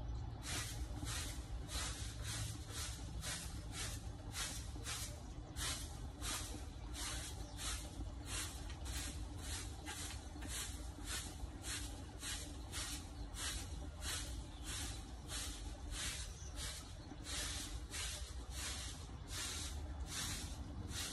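Walis tingting broom of stiff coconut-midrib sticks sweeping artificial grass in quick, even strokes, about three swishes a second.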